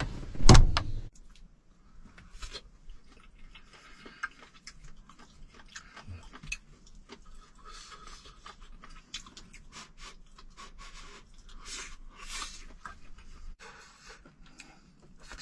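A single loud thump, then a person eating claypot rice: soft clicks and short crackly sounds of eating and chewing.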